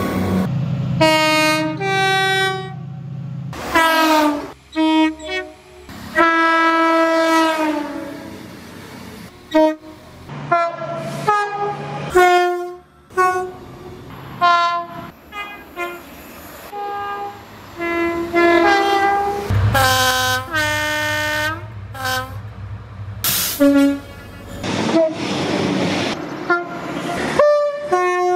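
Train horns from one train after another: multi-note horn chords sounding a run of short and long blasts, some bending in pitch, with the low rumble of the train under some of them.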